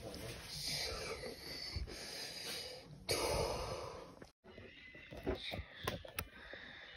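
Breathy, wheezy noises close to the microphone, with a louder rush of breath about three seconds in. After a brief cut there are a few sharp clicks of handling.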